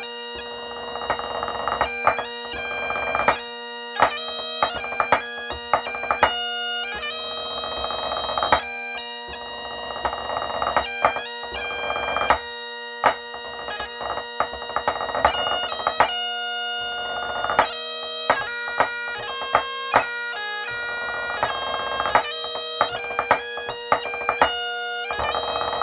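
Great Highland bagpipe playing a 3/4 march over its steady drones, with drumsticks striking out the snare drum part in sharp strokes and quick flurries.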